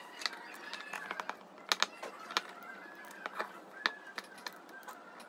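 Irregular sharp clicks and taps: cylindrical AA Ni-MH battery cells knocking against each other and against a plastic spring clamp as they are bundled and clamped by hand.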